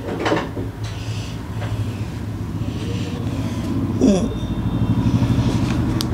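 Hands rubbing and working on a man's neck and shoulders over a steady low engine-like hum. There is a short swooping sound about four seconds in, fast pulsing after it, and a single sharp crack near the end.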